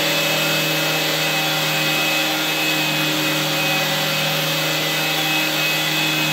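Upright vacuum cleaner running steadily while being pushed over sand on carpet: a continuous motor whine over a steady hum, with no change in pitch.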